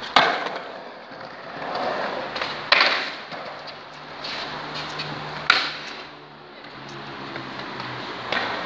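Skateboard wheels rolling on a concrete bowl, the noise swelling and fading as the skater carves, broken by sharp clacks of the board about every two and a half seconds.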